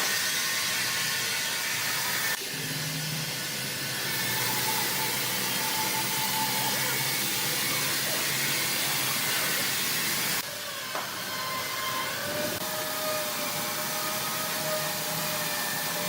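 Steady hissing machine noise with faint whining tones, changing abruptly twice, about two and a half and ten and a half seconds in.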